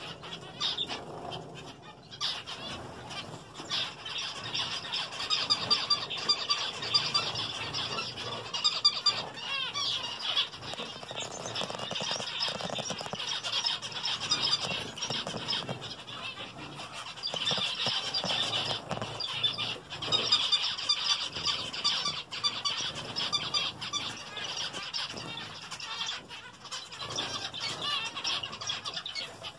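A flock of zebra finches calling constantly, a dense chatter of short, nasal beeps, with wings fluttering now and then.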